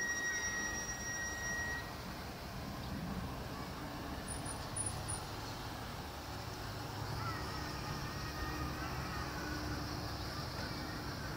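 Steady rumble of distant city street traffic heard from high above, with a thin high whistle over the first couple of seconds.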